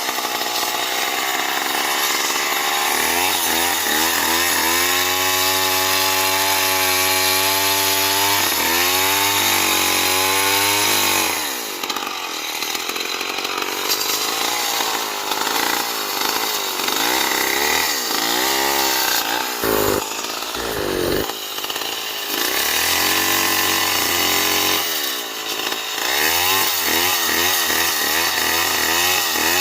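Stihl MS 070 two-stroke chainsaw running hard while sawing wood, its engine note sagging and rising again several times.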